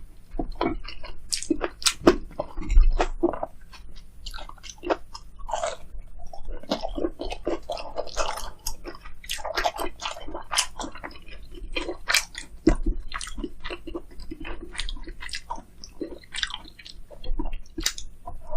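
Crunching bites and chewing of fried, breaded food: many short, crisp crackles with softer squishy chewing in between.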